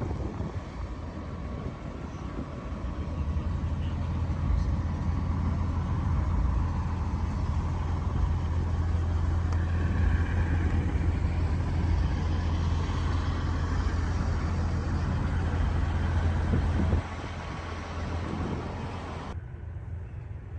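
A truck engine idling with a steady low rumble, which drops abruptly in level near the end.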